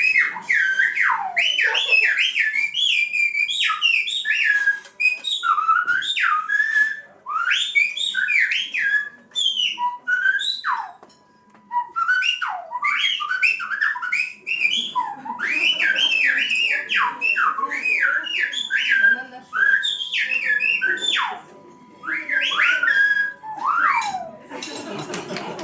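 Whistled speech in Silbo Gomero, the whistled language of La Gomera: loud, fast whistles swooping up and down in pitch, in phrases broken by a few short pauses.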